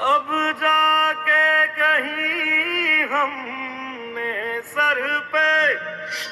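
Recorded song: a solo voice sings long held notes that waver and bend in pitch, with no clear words, over soft musical accompaniment.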